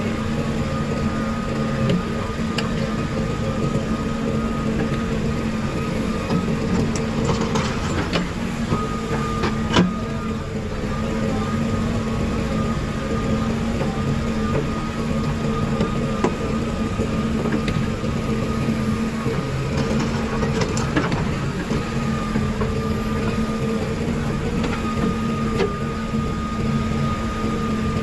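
Heavy diesel machinery running steadily: the engine drone of a JCB 3DX backhoe loader at work loading a tractor trolley, with a higher steady whine over it and a few sharp knocks, the clearest about ten seconds in.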